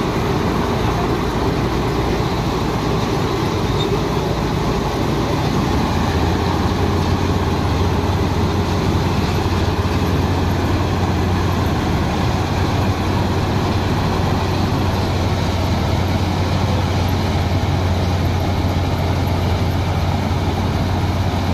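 Harjeet self-propelled combine harvester running steadily as it moves into standing wheat, engine and threshing works going together. A deeper low drone sets in about six seconds in and holds.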